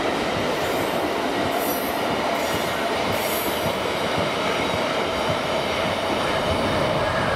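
Freight train wagons, open freight cars and empty car-transporter wagons, rolling past on the rails with a steady, loud rumble of wheels on track and a faint thin steady whine over it.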